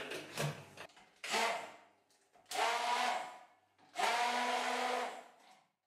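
Hand-held stick blender frothing coffee and milk in a jug, its motor switched on in three short bursts of about a second each, the last the longest.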